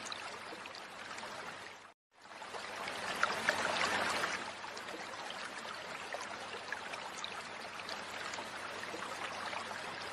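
Shallow stream running with a steady rushing noise, and water splashing as a person wades barefoot through it, loudest for a couple of seconds after a brief cut to silence about two seconds in.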